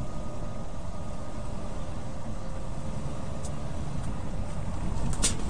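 Steady in-cab drone of a semi-truck cruising at highway speed: engine, tyre and wind noise. A couple of sharp clicks come near the end.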